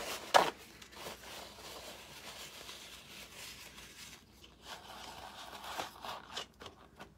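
Paper towel ripped sharply just after the start, then rustling and crinkling as a piece is wadded up in the hands and pushed into a paper cup.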